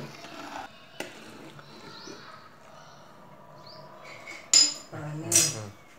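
Steel ladle stirring a pot of boiling crab rasam, with faint bubbling, a light knock about a second in and two sharp metallic clinks of the ladle against the steel pan near the end.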